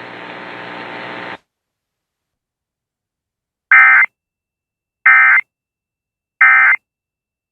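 Emergency Alert System end-of-message signal: three short identical blasts of data tone, about a second apart, marking the end of the flash flood warning. Before them, a steady hiss with faint hum cuts off about a second and a half in.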